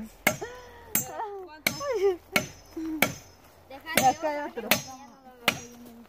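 Machete chopping into a fallen pine log to cut out its resin-soaked ocote heartwood: sharp blows at a steady pace, about three every two seconds.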